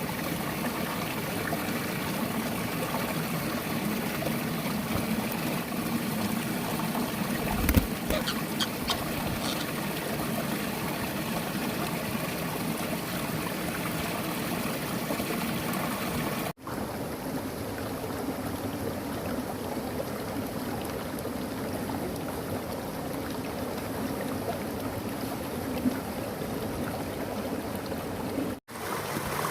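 Steady rush of flowing water, like a stream, with a single low thump about eight seconds in. The sound cuts out for an instant twice.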